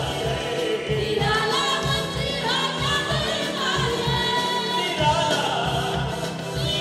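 A group of singers singing a Christian worship song together into microphones over amplified backing music with a steady beat.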